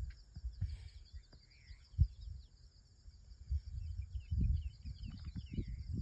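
Outdoor ambience: birds chirping steadily in the background, over low, irregular rumbling on the microphone. A single sharp knock about two seconds in.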